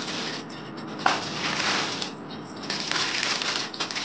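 Clear plastic garment polybag crinkling and rustling as hands pull it open and handle it, with a sharper crackle about a second in.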